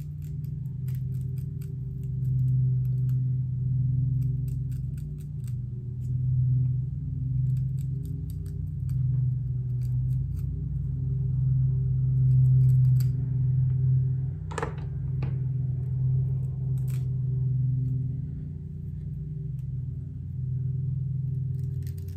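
Quick, light clicks and snips in short runs as the lace of a lace front wig is trimmed and worked at the hairline, over a steady low hum. A short ringing tap sounds twice about fifteen seconds in.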